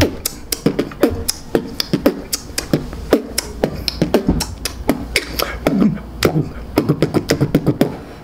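Beatboxing: a fast run of sharp mouth-made clicks and snare-like hits with short voiced notes between them.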